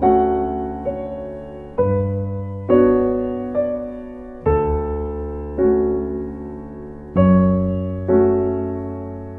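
Slow, gentle piano music: chords over a low bass note, struck about once a second and left to fade.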